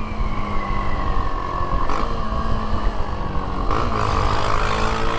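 Vehicle engine with an open, straight-through exhaust running loud and steady, its higher note falling slightly early on, with a change in the engine note about three and a half seconds in.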